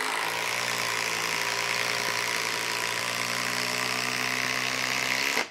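Milwaukee M12 Fuel impact driver hammering at a steady rate as it drives an 8-inch TimberLok structural screw into a log. It stops sharply near the end as the screw seats.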